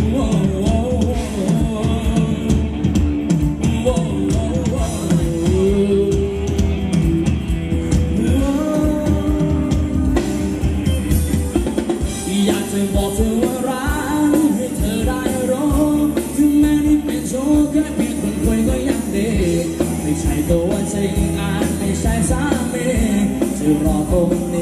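A live band playing Thai ramwong dance music, with a melody line carried over a steady backing.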